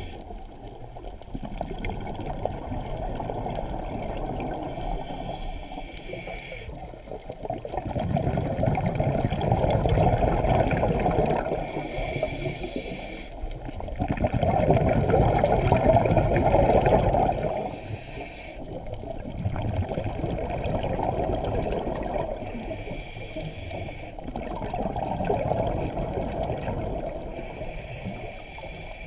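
Scuba diver's regulator breathing heard underwater through a GoPro housing: muffled, bubbling exhalations that swell and fade every five or six seconds, the loudest about halfway through.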